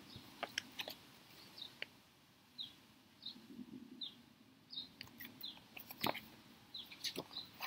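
Faint bird chirping: a run of short, falling chirps a little under a second apart, with a few soft clicks between them.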